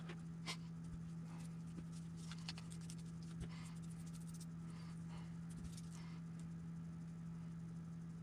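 Faint scattered clicks and light taps of small parts being handled on a workbench, over a steady low electrical hum.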